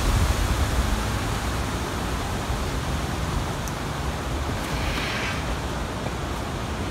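Wind rushing through the trees and buffeting the phone's microphone: a steady hiss with a low rumble that is heaviest at first and eases off.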